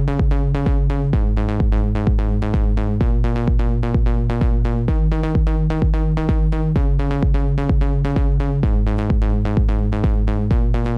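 Electronic dance music with a steady drum-machine kick about twice a second, under a bass and synth line that changes note every two seconds or so.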